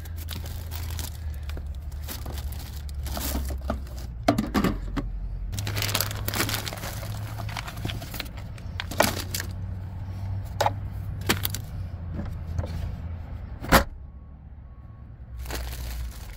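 Drink cans and bottles clinking and knocking against each other and a wire basket as they are moved about in a 12-volt portable fridge, with a sharp clack about 14 seconds in. A low steady hum runs underneath.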